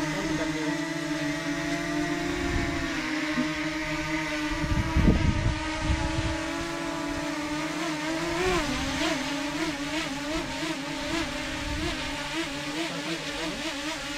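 DJI Mini 2 quadcopter's propellers buzzing as it hovers close by, the pitch wavering up and down as it manoeuvres in the second half. A brief low rumble about five seconds in.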